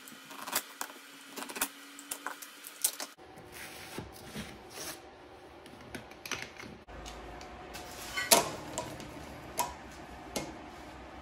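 Hand-handling noises in a workshop: a run of sharp clicks and light knocks as rods and a utility knife are handled and set down, the loudest knock a little past the middle.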